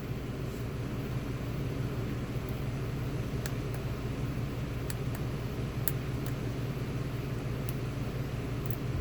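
Steady low background hum, with faint, sharp light clicks scattered through it, about nine in all, from pick and tension tools working the pins and sliders of a Fab Dynamic pin-and-slider lock.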